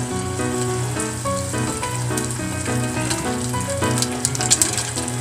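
Flour-and-egg coated chicken wings frying in hot cooking oil in a small saucepan, a crackling sizzle that grows denser near the end, heard over background music.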